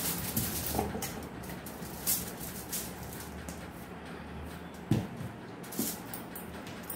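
Aluminium foil crinkling and rustling under hands as ghee is spread over it and a dough ball is set down on it, with one dull thump about five seconds in.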